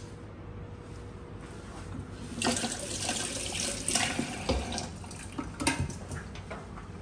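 Kitchen faucet running into a stainless steel sink for about two seconds, starting about two and a half seconds in, followed by a few light knocks near the end.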